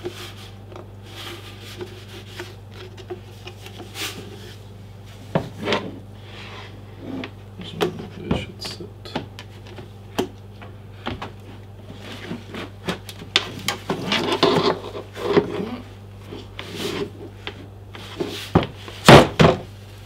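Hard plastic parts of a Biltema LBS 2600 leaf blower/vacuum being handled and fitted together: the blow tubes knock, rub and click against the housing, in scattered strokes that grow busier and louder through the second half. The loudest is a quick pair of knocks near the end as the unit is set down on the table, over a steady low hum.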